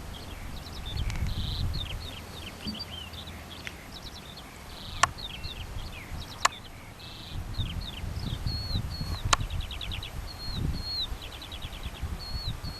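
Small birds chirping and trilling again and again, over a low wind rumble on the microphone, with three sharp clicks in the middle.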